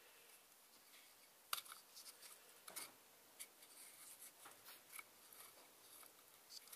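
Faint scattered clicks and scrapes of a small metal pick and rubber O-rings against the plastic stem of an oil filter cap as the O-rings are worked into place, with one sharper click about one and a half seconds in.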